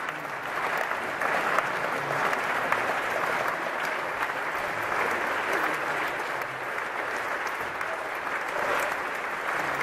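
Audience applauding: steady, dense clapping from a large crowd of hands.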